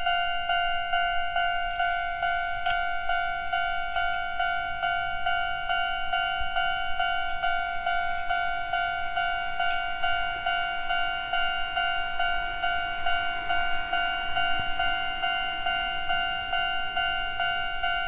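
Japanese level-crossing alarm sounding, the Chichibu Railway's old-type standard electronic bell: a two-tone ding repeating in a quick, even rhythm while the crossing is closed.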